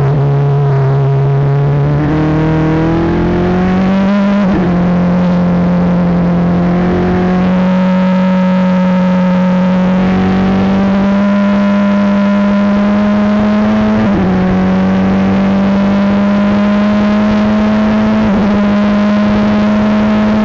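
Formula 3 race car engine at full throttle, its pitch climbing with road speed and dropping sharply three times as it upshifts, about 4, 14 and 18 seconds in, heard from the cockpit.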